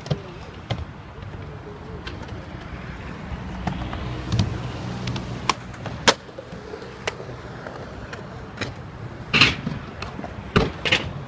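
Skateboard wheels rolling on concrete, then a sharp pop and, about half a second later, a loud clack of the board coming down as the skater jumps the stair set. A few more knocks and clatters follow near the end.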